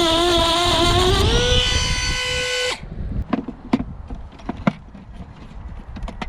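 Handheld power drill or driver running with a steady pitch that sags under load and recovers, then stops abruptly between two and three seconds in. Scattered clicks and knocks of handling follow.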